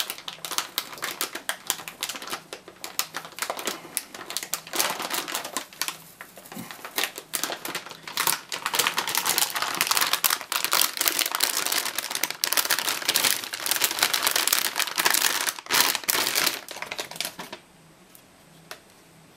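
Anti-static plastic bag crinkling and crackling as a graphics card is slid out of it by hand. The crackling grows heavier about halfway through and stops a couple of seconds before the end.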